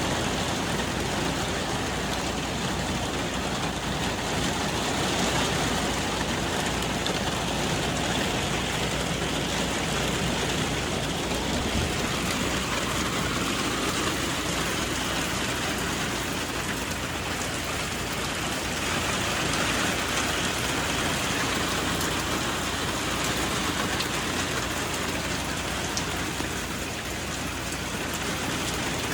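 Hard rain falling steadily, a constant even hiss with no letup.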